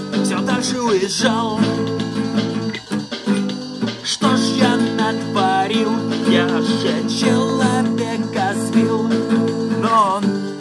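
A man singing in Russian to a strummed acoustic guitar, the guitar chords going on steadily under sung phrases.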